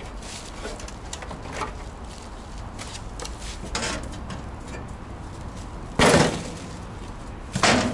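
Scrapes and light knocks of metal parts being handled, then a loud metal clank about six seconds in and another near the end.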